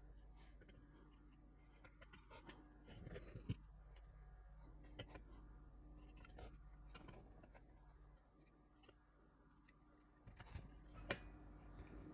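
Near silence with a few faint, scattered clicks: resistor wire leads being pushed through and bent on a circuit board held in a PCB holder.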